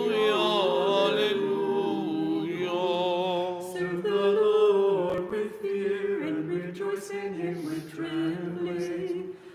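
Unaccompanied choir singing Orthodox liturgical chant, a drawn-out sung alleluia refrain. The voices hold long, wavering notes and break off briefly near the end.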